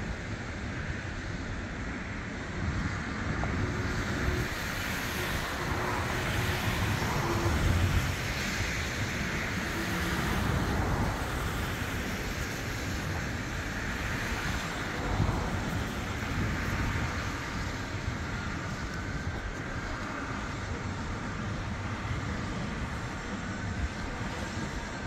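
Road traffic noise: a steady rumble of passing vehicles that swells a few times as vehicles go by.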